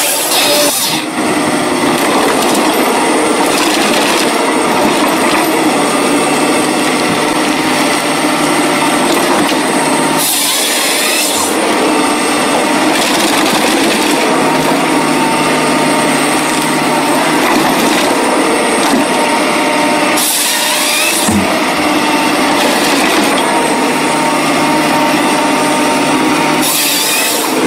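Forestry harvester working: its diesel engine and hydraulics run steadily as the harvester head grips, feeds and delimbs logs. Three brief, harsher hissing bursts come about ten, twenty and twenty-seven seconds in.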